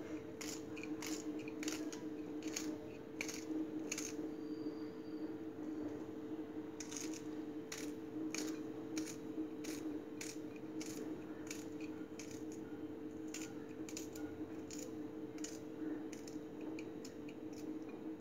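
Small kitchen knife cutting green chillies by hand, blade pressed against the thumb: a run of crisp clicks, a few a second, pausing for a couple of seconds about four seconds in. A steady low hum runs underneath.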